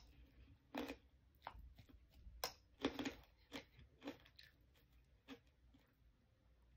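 Quiet eating sounds: chewing with irregular short clicks and crunches, some from a metal spoon scraping and tapping in the soup bowl.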